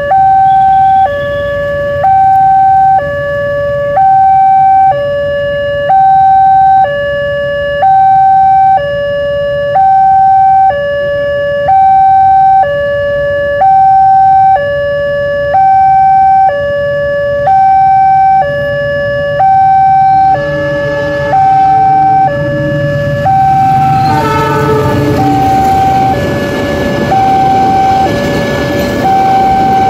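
Railway level-crossing warning siren sounding a steady two-tone alternation, high then low, each tone about a second long: the crossing is closed for an approaching train. About twenty seconds in, a horn sounds for a few seconds and a loud rushing noise builds under the siren.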